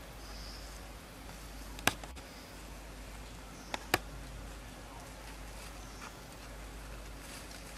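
Steady outdoor background hiss with faint insect buzzing, broken by three sharp clicks: one about two seconds in and a close pair just before four seconds.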